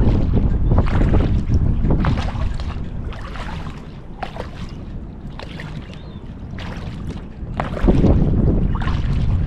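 Wind buffeting the microphone in a heavy low rumble, with the splash of kayak paddle blades dipping into the water about once a second as the strokes alternate sides. The wind eases in the middle and gusts back in near the end.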